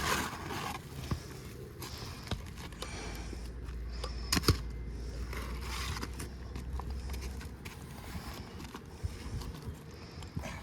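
Old three-tab asphalt shingle being worked loose and slid out from under the row above, with one sharp click about four and a half seconds in.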